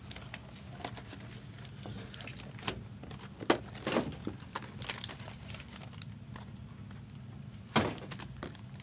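Sparse light clicks and taps of trading cards in hard plastic cases being handled and set down on a table, with one louder knock near the end, over a low steady hum.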